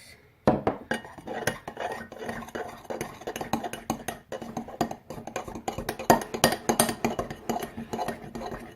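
A spoon stirring fluffy-slime mix (glue, shaving cream and food colouring with borax just added) in a bowl, with quick, irregular clinks and scrapes against the bowl, starting about half a second in; this is the borax activator being mixed in.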